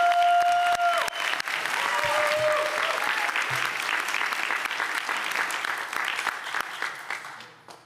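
Crowd applauding, with a couple of long held cheers from voices in the first three seconds; the clapping dies away just before the end.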